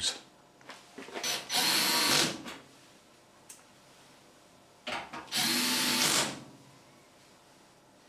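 Cordless drill-driver, set to a very low torque, driving screws into the back of a washing machine: two short runs of about a second each, the second about four seconds after the first.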